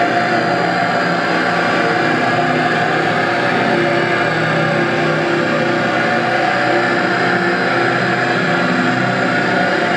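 Live experimental electronic drone music: dense layers of sustained tones over a steady wash of noise, with no beat, played on laptops and controllers.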